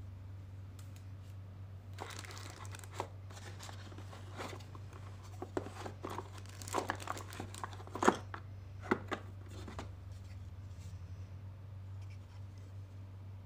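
Clear plastic packaging wrap crinkling in the hands in irregular bursts, with a few sharp clicks, loudest about eight seconds in and settling a couple of seconds later. A steady low hum runs underneath.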